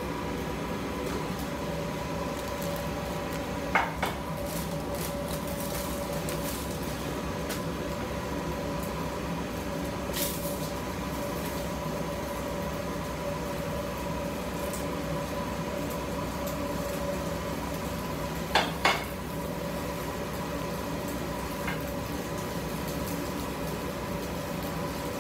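Spatula knocking and scraping against a frying pan and a plate while food is served, with two sharp clinks about 4 s in, a louder double knock near 19 s and a few lighter taps, over a steady machine hum.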